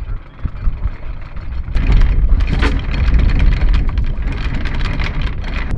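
Electric anchor windlass hauling in the anchor chain, the links clattering over the gypsy, getting louder about two seconds in, with a low rumble underneath.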